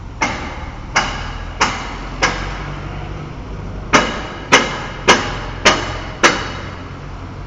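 Hammer blows on metal, ringing briefly after each strike, about one every 0.6 seconds: four blows, a pause of nearly two seconds, then five more. A steady low machinery hum runs underneath.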